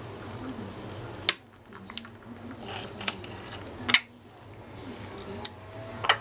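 A handful of sharp clicks and clinks, about five spread over several seconds, as conures work a small hanging metal chain toy with their beaks and feet on a metal perch.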